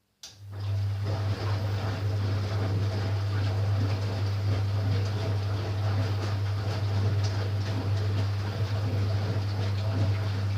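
Ariston Quadrifoglio LB476ST washing machine starting abruptly with a loud, steady low electrical hum and rushing water over it, running evenly.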